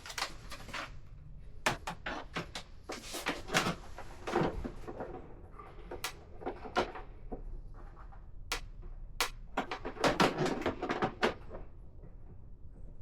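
Irregular clicks and knocks of an Allen key and bolts being worked on a motorcycle fairing as the bolts are tightened, busiest about three seconds in and again about ten seconds in.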